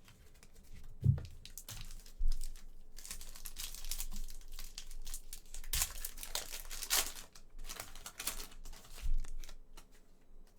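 Foil trading-card pack wrapper being torn open and crinkled, with several dull thumps of the pack and cards being handled.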